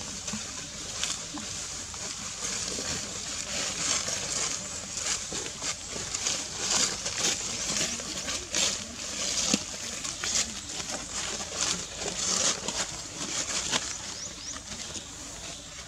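Forest-floor ambience: dry leaf litter rustling and crackling in irregular bursts over a steady high hiss.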